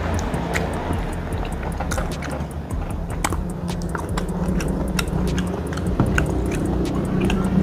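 Hand mixing rice and goat curry on a glass plate: many small, sharp wet clicks and squelches, over a steady low hum.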